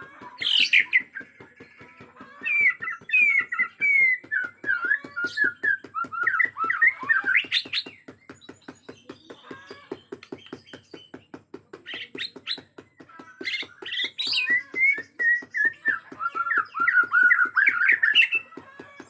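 Bornean shama (murai batu Borneo) singing in full, fired-up song: rapid, varied whistled phrases that glide up and down, in two long bouts with a quieter gap in the middle. A steady ticking of about four or five clicks a second runs underneath.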